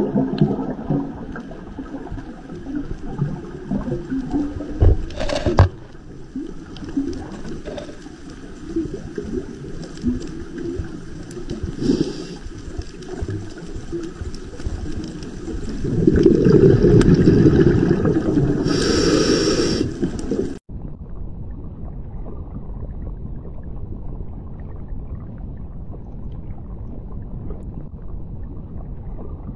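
Underwater ambience picked up by an underwater camera: a muffled rumbling wash with scattered clicks and a louder gurgling swell about 16 seconds in. It cuts off suddenly a little after 20 seconds and gives way to a steadier, duller hiss.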